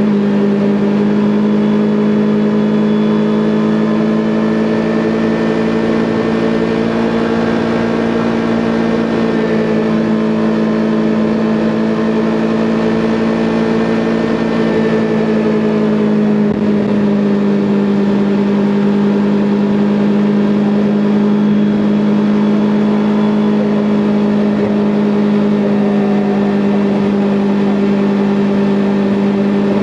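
Kawasaki Ninja 400's parallel-twin engine under way at steady revs, its note rising slightly then settling back through the middle of the stretch.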